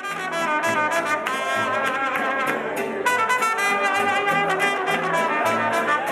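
Mariachi band playing: trumpets carry the melody over a steady strummed guitar rhythm and a stepping bass line.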